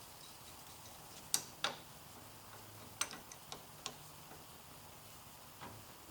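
Wrench clicking against metal A/C line fittings while being set on a stuck nut: about eight sharp, irregular metallic clicks and taps, in little groups.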